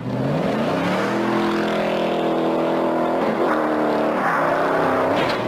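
Ford Mustang engine revving hard at full throttle. The pitch rises over the first second and holds high, dips briefly twice in the second half, and cuts off abruptly near the end.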